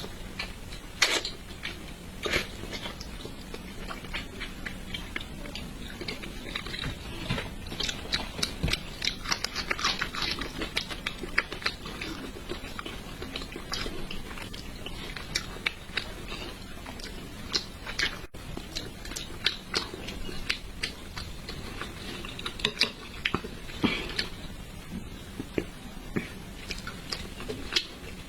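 Close-miked wet chewing, biting and mouth clicks of someone eating spicy braised carp, in quick irregular snaps.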